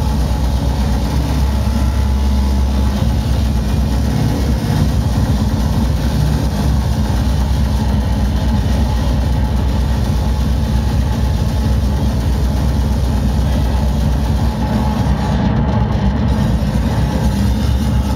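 Loud, distorted electronic dance music from a club sound system, a fast, heavy bass-drum beat driving it. The highs briefly drop out about fifteen seconds in.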